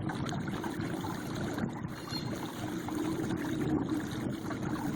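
A 43-pound-thrust electric trolling motor pushing a kayak along, a steady low hum under water rushing and gurgling past the hull.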